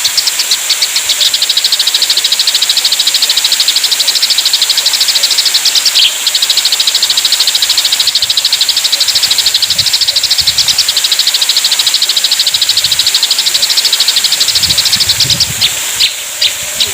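Eurasian tree sparrows chattering in a fight: a fast, unbroken run of sharp chirps, many a second, over a steady high hiss. The run breaks briefly about six seconds in and thins to a few separate chirps near the end.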